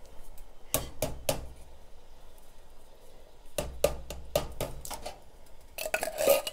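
Metal can of diced tomatoes tipped and shaken over a stainless steel pot, giving a few short knocks about a second in and again around four seconds in, then a spoon scraping and clinking inside the can near the end.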